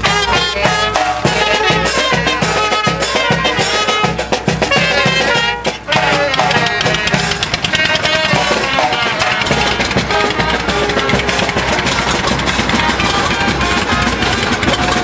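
Small brass band playing a lively tune: trumpets and saxophones carrying the melody over a steady beat on bass drum and snare drum.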